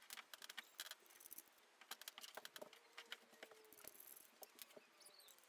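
Near silence with faint, irregular small clicks and taps, like small parts and tools being handled.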